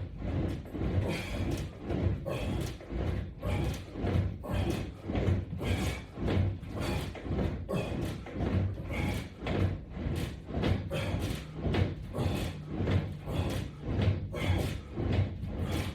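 A steady rhythm of dull thumps, about one and a half a second.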